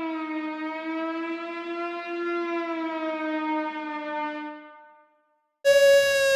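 Civil-defense-style siren sound from a custom Emergency Alert System alarm, slowly wavering in pitch, fading out about five seconds in. After a moment of silence, a louder, higher siren tone starts abruptly near the end and slowly falls in pitch.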